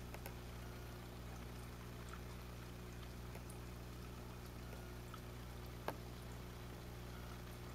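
Aquarium equipment running with a steady low mains hum, faint water bubbling and small scattered ticks, and one sharp click about six seconds in.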